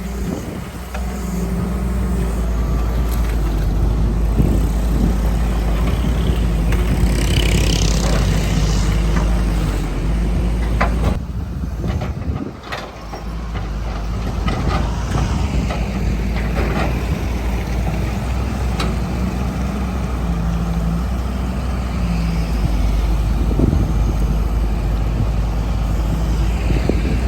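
Excavator's diesel engine running steadily under load, with occasional knocks and scrapes as it digs. The engine note drops briefly about eleven seconds in, then picks up again.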